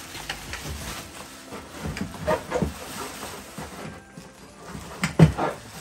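Clear plastic bag rustling and crinkling as pressure-cooker parts are wrapped and handled, with a few light knocks and one louder thump about five seconds in.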